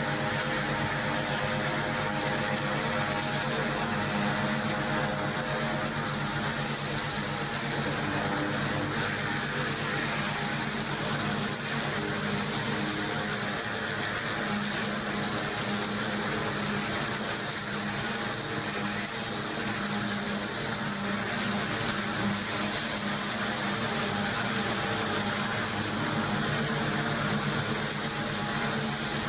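A high-pressure water jet from a pressure washer lance blasting a tank's road wheels and tracks clean: a steady hiss of spray over the constant drone of the machine driving it.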